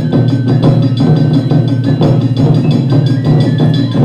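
Japanese taiko drum ensemble playing a fast, steady rhythm of dense drum strokes, with a thin high melody line above the drums.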